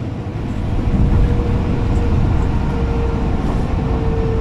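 Steady rush of road and engine noise inside a moving vehicle driving through a tunnel, with a faint steady whine in the second half.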